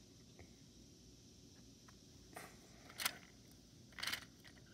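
A plastic toy subway train and its track handled by fingers: a few faint, brief clicks and scrapes in the second half, the sharpest about three seconds in.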